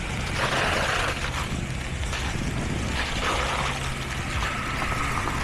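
Heavy construction machinery engine running steadily at a low pitch, with irregular rougher noise over it.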